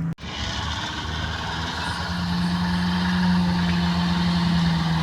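Off-road vehicle engine running steadily, with a low rumble and a noisy hiss of driving. The sound cuts out for an instant just after the start, and the engine's steady drone grows louder from about two seconds in.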